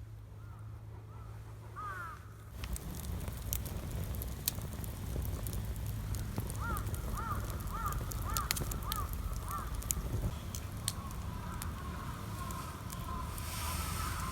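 A bird calling in a quick run of about six short calls, over a steady low rumble, with scattered sharp clicks.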